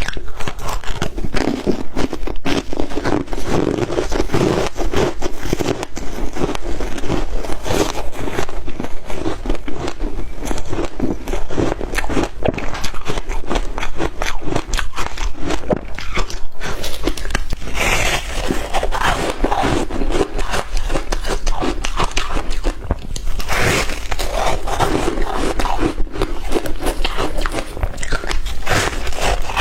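Shaved ice being bitten and chewed: continuous rapid crunching, with a few louder crunches about two-thirds of the way through.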